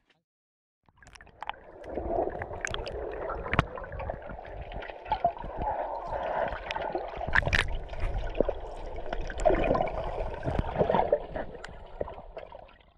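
Water gurgling and sloshing as picked up by a camera held underwater in the sea, muffled, with many small clicks and knocks scattered through it. It starts about a second in.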